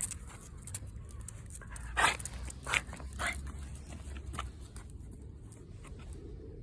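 Exotic bully puppy making three short, sharp sounds in quick succession over about a second and a half, with softer noises around them.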